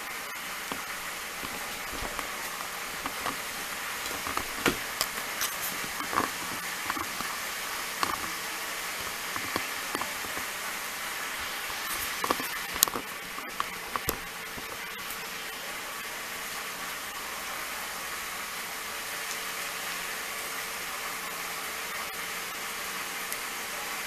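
Scattered small clicks and taps of spice jars, bottles and lids being handled on a table, over a steady background hiss with a faint hum. The tapping stops a little past halfway, leaving only the hiss.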